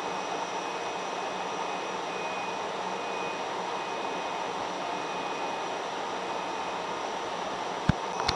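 Steady whirring of a stationary JNR EF65 electric locomotive's cooling blowers and auxiliary machinery, with a single sharp knock near the end.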